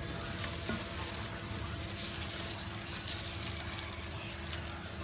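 Gloved hands tossing and mixing seasoned fried tofu pieces in a stainless-steel bowl: a continuous crackly rustle of food and plastic gloves with small clicks, over a faint steady hum.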